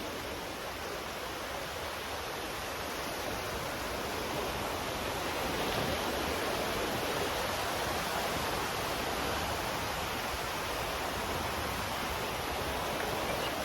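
Sea surf washing onto a beach as a steady rushing noise, swelling slightly over the first few seconds and then holding.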